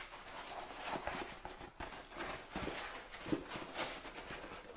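Handling noise from a foam turkey decoy being turned over and opened out in the hands: irregular rustles and soft knocks.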